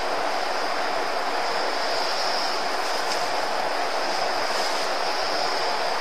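Steady, even hiss that stays level throughout, with no voices or distinct events.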